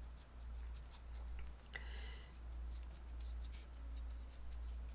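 Paintbrush stroking acrylic paint onto a stretched canvas: soft, scratchy back-and-forth strokes in a regular rhythm, under a steady low hum.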